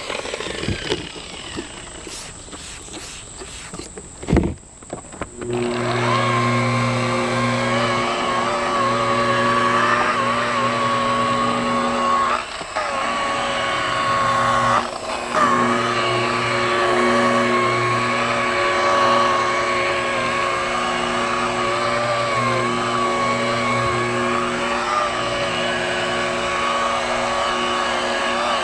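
Orbital buffer's motor whining steadily as it is pressed against a jet ski's gel coat hull, its pitch wavering slightly with the pressure. Near the start it is quieter, with a sharp knock, then it runs steadily again at about five seconds in.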